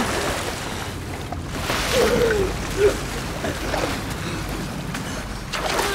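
Floodwater splashing and sloshing around people struggling in it, with a few short strained vocal sounds about two to three seconds in.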